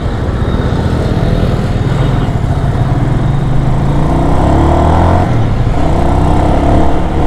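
Hartford Leopard 223 cruiser's carbureted engine pulling through the gears while riding. The engine note rises twice, about four and six seconds in, with a short dip between.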